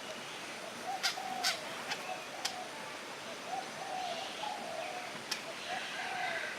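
Birds cooing: a run of short, low, arched calls, each about half a second, repeating every second or so, with a few sharp clicks in the first half.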